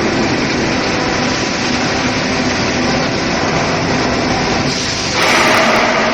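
Steady industrial machinery noise from a factory production line, with a faint steady hum; it grows louder and hissier about five seconds in.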